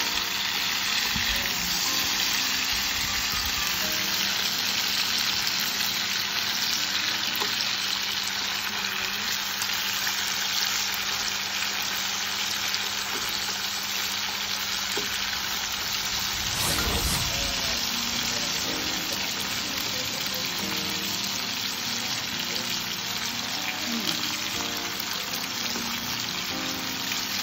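Pork belly pieces sizzling steadily as they fry in oil and their own rendered fat in a pan. A brief knock sounds about 17 seconds in.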